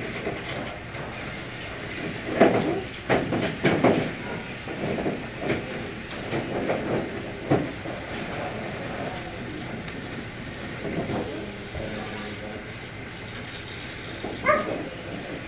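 Motorized TrackMaster toy trains running on plastic track, with irregular clicks and clatter of plastic track and toys being handled. Children's voices come in briefly now and then.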